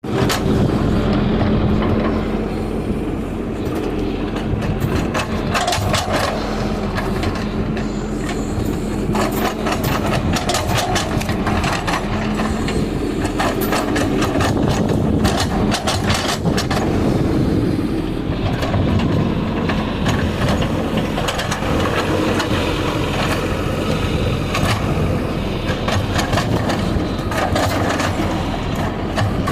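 Hydraulic excavator's diesel engine running steadily while digging, with many sharp knocks and clicks over the drone.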